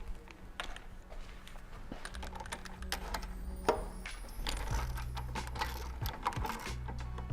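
Irregular metallic clicks and clinks of hand tools, a torque wrench and socket, being worked on a rear suspension arm bolt, over a low hum.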